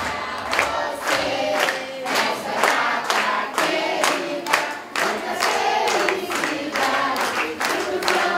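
A crowd of party guests singing a birthday song together around the cake, clapping in time at about two claps a second.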